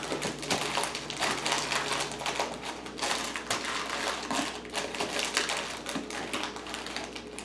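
Plastic bait packages of soft-plastic lures being shoved and rustled into the top tray of a plastic tackle box: a steady run of small crinkles, clicks and taps of packaging against the hard plastic tray.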